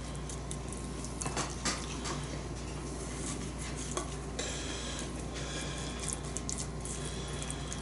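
Light clicks, taps and scrapes of a silicone basting brush and a handled plate as barbecue sauce is brushed onto a beaver tail, over a steady low hum.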